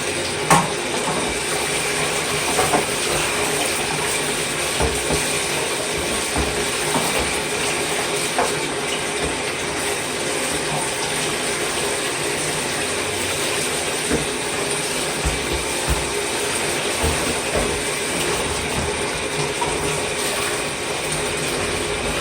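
Water running steadily while plastic vacuum cleaner parts are scrubbed and rinsed in a tub, with scattered small knocks of the parts being handled.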